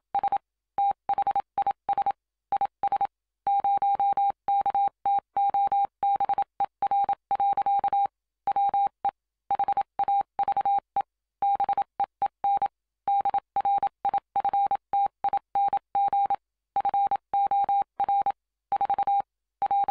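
Morse code sent as a single steady beep, keyed on and off in short and long elements with irregular pauses between groups.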